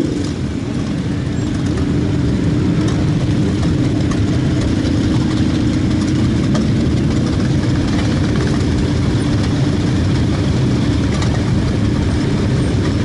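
Many motorcycle engines, mostly cruisers, running together as a column of bikes rides slowly along. It makes a dense, steady engine drone that holds one low pitch.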